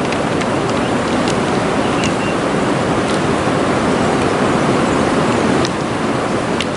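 Steady rush of a shallow river running over rocks, an even noise, with a few faint ticks.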